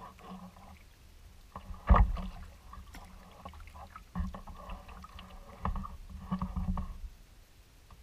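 Kayak paddling: the paddle blades dipping and pulling through the water in a few spells of strokes, with one sharp, loud knock about two seconds in.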